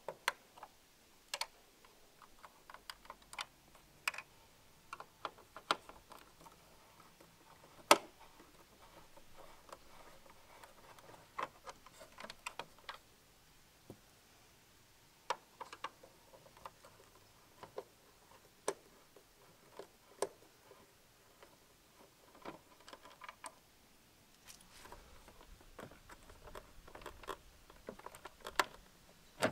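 Scattered plastic clicks and taps as a screwdriver pries small cover caps off the trim beside a Hyundai i30's rear tail light, with one sharp, loud click about eight seconds in. Near the end a cluster of clicks and rubbing comes as the tail-light unit is pulled free of its mounting clips.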